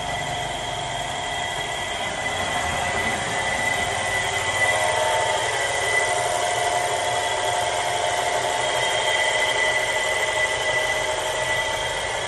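Electric motor driving a belt-driven LPG transfer pump, running steadily with a constant whine over a low hum. It grows a little louder about three seconds in.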